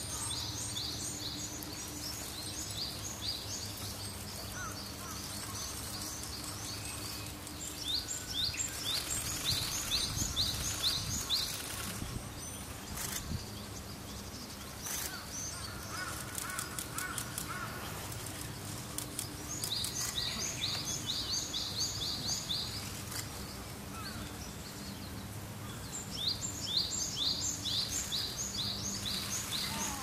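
A songbird sings four bursts of quick, repeated high notes, each about three seconds long and spaced several seconds apart, over steady outdoor background noise with a low hum.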